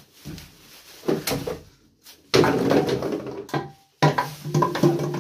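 Empty bottles clattering against each other and a plastic bin bag rustling as bottles are cleared off a cupboard shelf into the bag, in short bursts that start and stop abruptly.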